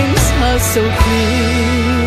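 Music: a rock-tinged ballad with band backing, its melody holding a long note with a wavering vibrato from about halfway through.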